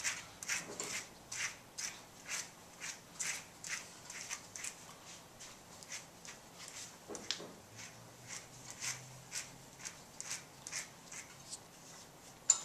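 Slicker brush raking through a long-haired dog's coat as cleaning powder is dry-brushed out, in quick repeated strokes about two a second, with a sharp click near the end.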